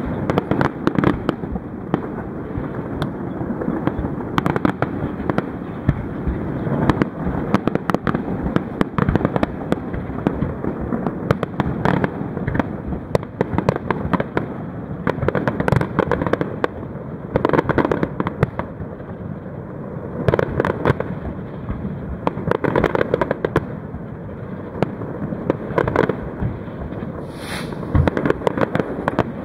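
Fireworks display: aerial shells bursting one after another, many bangs and crackles in quick succession with no let-up.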